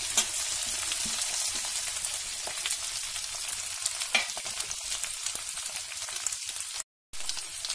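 Crumbled boiled potatoes sizzling in hot oil with cumin seeds in a steel kadhai: a steady frying hiss with a few scattered clicks. The sound cuts out for a moment near the end.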